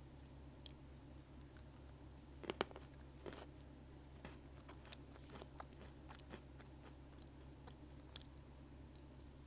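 Close-up chewing of almond Pocky, crisp biscuit sticks: sharp crunching crackles, loudest about two and a half seconds in, then lighter crunches through the rest, over a steady low hum.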